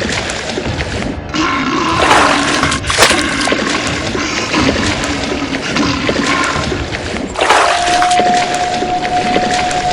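Rushing water and splashing, broken by abrupt cuts; a steady high tone comes in about three-quarters of the way through and holds.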